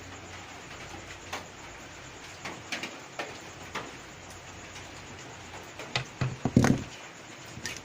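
Scattered light clicks and knocks of hands handling the equipment, with a louder cluster of knocks about six seconds in.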